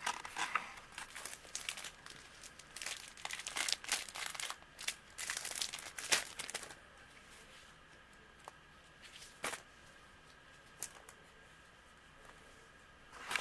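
Packaging of Instax sticker-frame packs crinkling and rustling as they are handled, busy for about the first half, then only a few light clicks.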